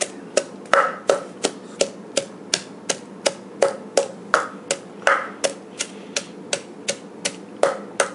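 Wooden pestle pounding garlic in a large wooden mortar, the Lao way: a steady run of hollow knocks about three a second, some strikes harder than others.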